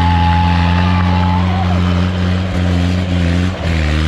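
Off-road jeep engine running at a steady, even pitch, with a brief dip in engine note about three and a half seconds in. A thin whistle-like tone is held over it for the first second and a half.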